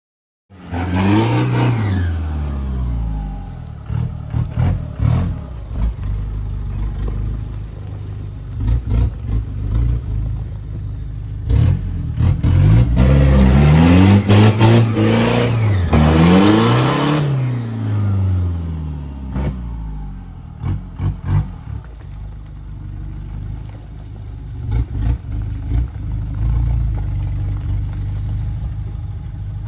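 Off-road 4x4 vehicle's engine revving up and falling back again and again, with scattered knocks and clatter. It starts abruptly about half a second in.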